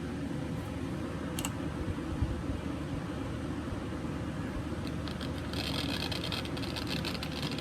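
Steady low rumble, then about five and a half seconds in a firework fountain starts spraying with a dense, fast crackle.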